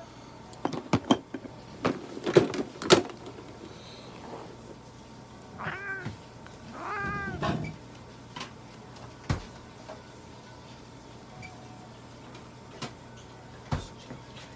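Domestic cat meowing twice, two drawn-out meows about six and seven seconds in. A cluster of sharp knocks and clatters in the first three seconds is louder than the meows, with single knocks later on.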